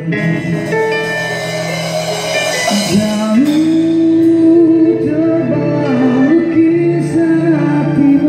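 Band playing a Malay song live in rehearsal: a singer's voice over guitar and band, with a long held, wavering sung note starting about three and a half seconds in.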